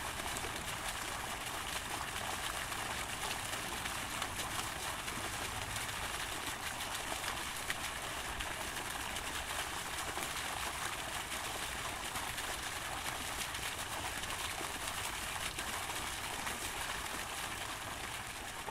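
Park fountain: a steady splashing rush of falling water.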